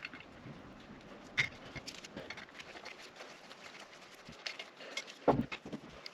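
Light clicks and knocks of small steel parts being handled as an oil pump is put back together, with a louder knock about five seconds in.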